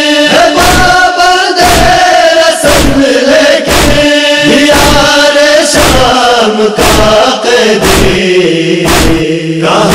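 Men's voices chanting an Urdu noha together in long, drawn-out wavering notes, with sharp rhythmic strikes of matam (chest-beating by the mourners) about two a second.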